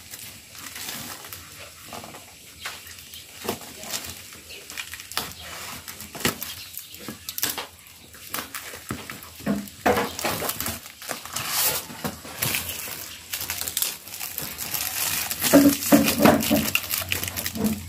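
Scissors snipping through cardboard and packing tape, with rustling and crinkling of the packaging as it is pulled open. It grows busier and louder in the second half, and a brief low call sounds near the end.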